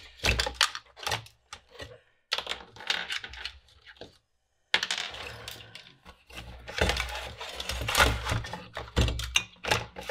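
Clinks, clatters and scrapes as the Amiga 2000 power supply's circuit board is worked loose from its case, with small loose washers rattling and dropping. There is a brief break about four seconds in, and the clatter is denser after it.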